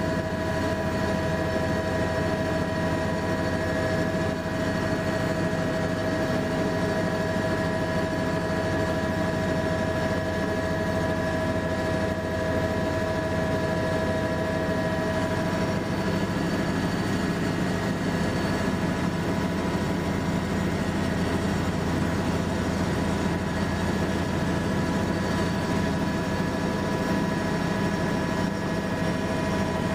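Helicopter in steady flight: a low rotor rumble under a constant engine whine, unchanging throughout.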